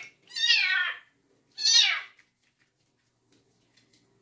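Young kitten meowing while being bathed in water: the end of one cry right at the start, then two more high-pitched meows that fall in pitch, about a second apart, in the first half.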